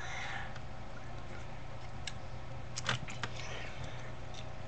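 Steady low hum and hiss of room tone, with three faint short clicks about two to three seconds in, the middle one loudest.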